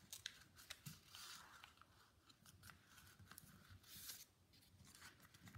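Paper being folded in half and creased by hand on a wooden table: faint crinkling and rustling with scattered small crackles.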